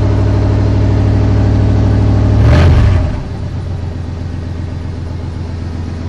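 1995 Chevrolet Silverado pickup's exhaust at idle, with a short surge about two and a half seconds in, after which it settles to a lower, quieter idle.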